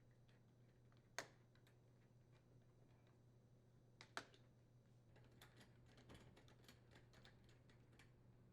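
Very quiet clicks and taps of a nut driver and metal parts as the dishwasher door handle's mounting screws are threaded in: two sharper clicks, then a run of light rapid clicks in the second half, over a low steady hum.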